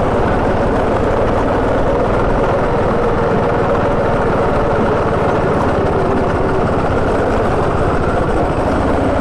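Go-kart engine running at a fairly steady pitch as the kart is driven around the track, heard up close from the driver's seat.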